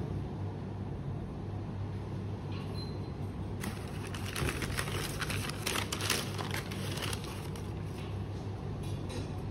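Tissue paper in a cardboard shoebox rustling and crinkling as a hand moves it, for about three seconds starting a little over a third of the way in, over a steady low hum.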